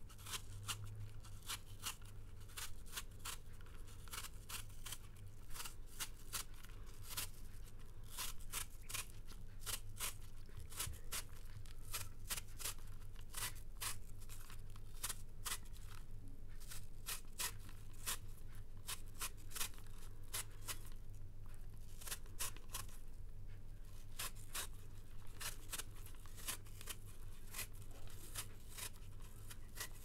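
A speed peeler scraping the skin off a firm Granny Smith apple in quick, repeated strokes, a few a second, that thin out briefly about two-thirds of the way through. A steady low room hum runs underneath.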